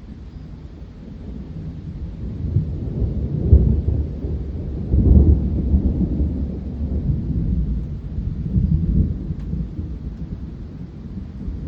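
Rolling thunder from a summer thunderstorm: a low rumble that swells over the first few seconds, peaks with two loud rolls near the middle, then rumbles on and slowly eases off.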